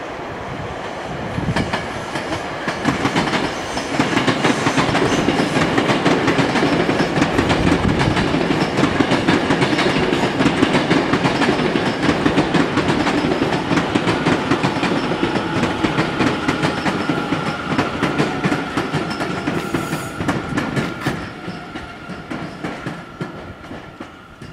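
Tokyo Metro 10000 series electric train passing close by, its wheels clattering rhythmically over the rail joints. The sound grows loud about four seconds in and fades away near the end.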